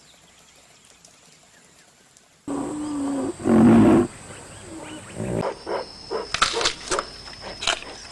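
A big cat roars, starting suddenly about two and a half seconds in after a quiet start, loudest just before the four-second mark. A run of short, sharp sounds follows in the second half.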